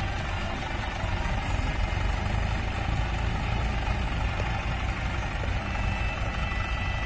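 Mahindra 575 DI tractor's four-cylinder diesel engine running steadily, getting a little louder about a second in as it pulls a trolley that has sunk into soft earth.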